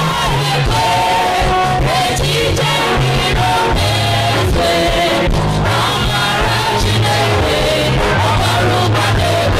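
Many voices singing a worship song together over band accompaniment, with low sustained bass notes and a steady beat.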